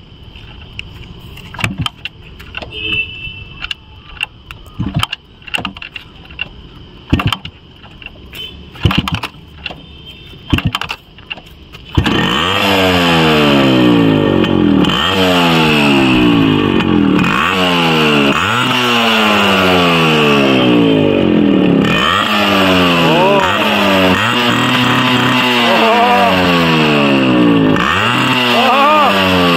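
Yamaha RX two-stroke single-cylinder motorcycle being kick-started: several sharp kicks of the kick lever over the first twelve seconds, then the engine catches about twelve seconds in and runs loud. It is revved hard again and again, each blip of the throttle rising and falling in pitch.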